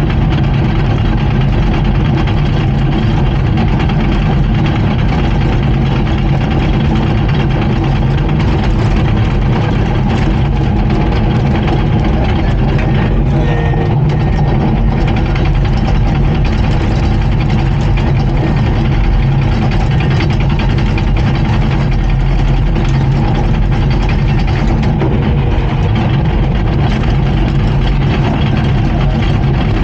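Komatsu D39PX bulldozer's diesel engine running steadily and loudly, with no change in pitch.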